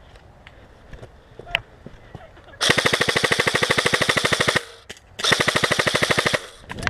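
G&G CM16 SRL airsoft electric gun firing two full-auto bursts of rapid, evenly spaced shots. The first burst lasts about two seconds and the second, after a short pause, about one second.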